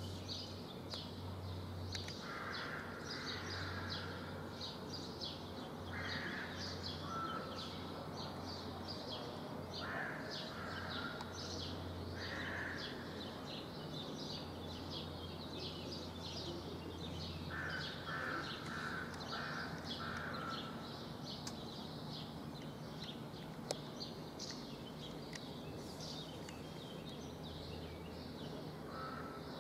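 Outdoor birdsong: many small birds chirping and twittering without pause, with a lower bird call coming in several times, once as a quick run of about five notes, over a low hum.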